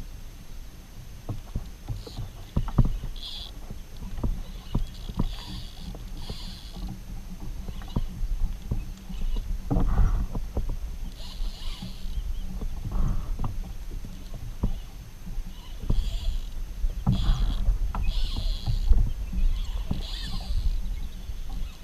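Irregular knocks and clunks on a plastic kayak hull, with short splashy hisses of water, while a hooked fish is fought on a bent rod. A low wind rumble on the microphone runs underneath.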